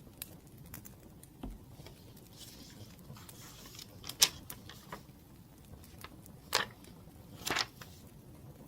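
Wood fire crackling: scattered small pops and clicks, with a few louder snaps about four, six and a half, and seven and a half seconds in.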